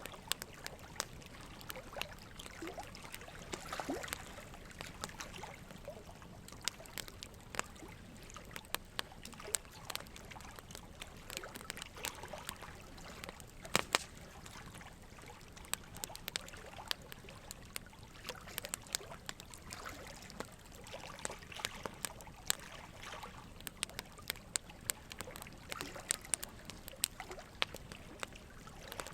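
Quiet ambient background: a steady soft hiss dotted with frequent small, irregular clicks and ticks, water-like in character.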